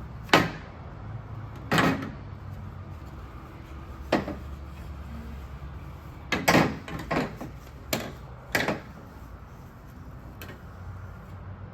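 PVC pipe parts knocking and clunking as they are handled and set down during cleaning: about eight short, irregular knocks, the loudest just after the start.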